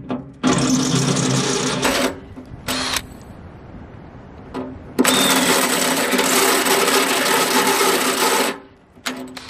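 Cordless drill with a step drill bit boring through the steel side of a tractor's front-loader bucket, run in bursts: a run of about a second and a half, a short blip, then a longer run of about three and a half seconds, the motor whining steadily under load.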